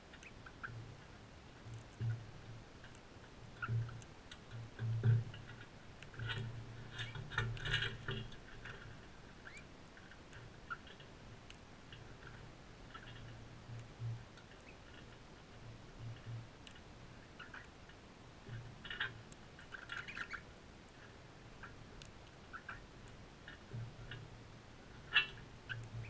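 Crimson rosellas feeding at a seed dish: irregular clicks and crackles of beaks husking seed and tapping the bowl, in scattered clusters, with soft low thumps.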